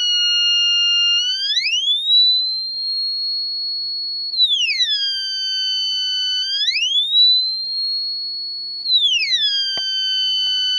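Homemade electronic siren with a transistor output stage sounding a wail: a high tone drops quickly to a low one, holds about a second, then glides back up and holds, repeating about every four and a half seconds. A click comes near the end.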